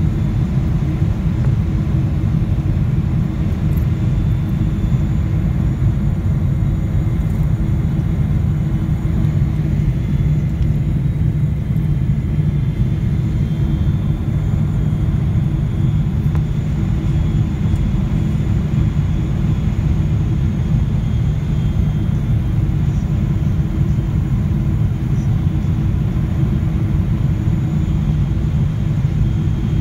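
Steady cabin noise of a jet airliner on approach: an even, low rumble of engines and airflow heard through the fuselage, with a faint steady hum above it.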